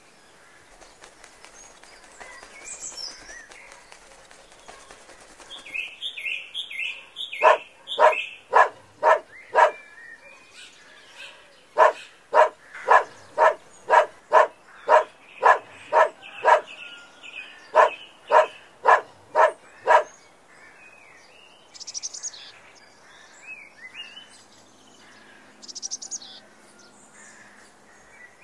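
A bird calls loudly and harshly in three runs of evenly spaced notes, about three a second. Fainter chirping of small birds comes before and after.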